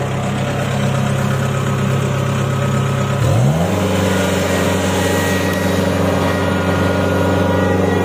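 Rice combine harvester's engine running steadily, then revving up about three seconds in and holding at the higher speed.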